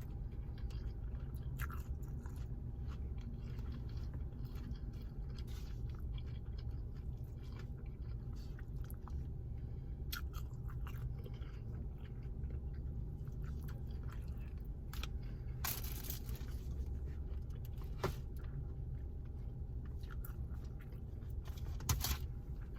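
A person chewing and eating a shrimp and rice bowl, with scattered small crunches and clicks, over a steady low hum.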